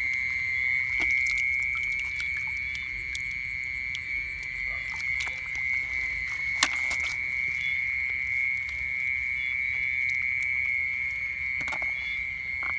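A steady, high-pitched night chorus of calling animals in the ditch-side vegetation, with small splashes and clicks as hands feel through the water and weeds for apple snails; one sharp click about six and a half seconds in.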